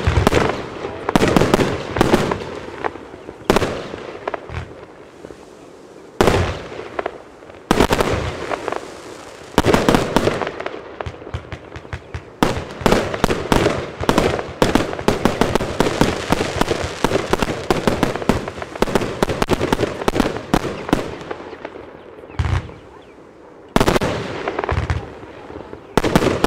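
Broekhoff Beyond Redemption 136-shot compound firework cake firing: a string of launch thumps and aerial bursts with crackle. The shots come a second or two apart at first, run together into a dense, near-continuous barrage through the middle, and thin out to single bangs again near the end.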